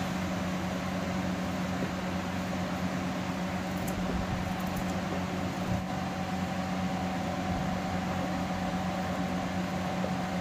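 A steady mechanical hum with a low tone and a higher tone over a hiss, typical of a running fan or household appliance. A few faint clicks come from a knife cutting potato chunks by hand over a steel plate.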